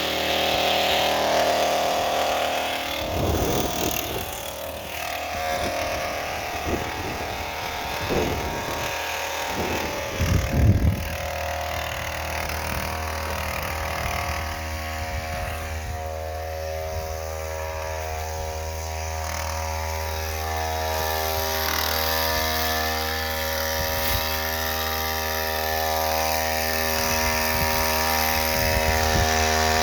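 Ryobi gas chainsaw's two-stroke engine idling steadily, off the throttle, just after a hard start and liable to stall. A few low knocks and bumps sound in roughly the first ten seconds.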